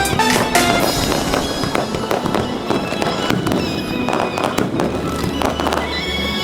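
Fireworks bursting and crackling, many bangs in quick succession, with music playing alongside.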